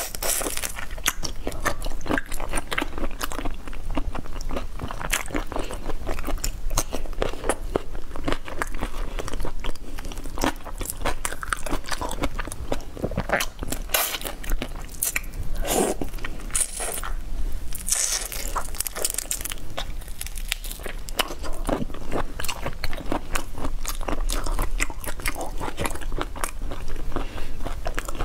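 Close-miked biting, chewing and crunching of whole marinated shrimp, a dense run of wet mouth sounds and small crackles as shell and flesh are bitten.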